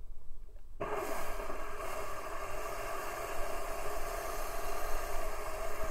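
Electric jet-drive pump of a DIY jet board running, a steady whine over rushing water as the jet blasts out of the directional nozzle. It comes in strongly about a second in and then holds steady.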